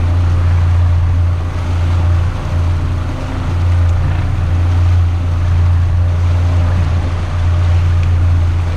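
Evinrude 90 outboard motor running steadily as the boat trolls forward, with a haze of water and wind noise over the engine hum.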